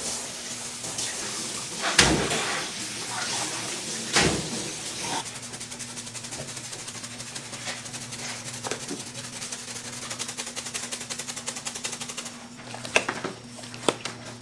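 Gloved hands slapping and rubbing wet mustard binder over raw meat, with two loud slaps about 2 and 4 seconds in. Then comes a fast, even rattling for several seconds, and two sharp clicks near the end, over a steady low hum.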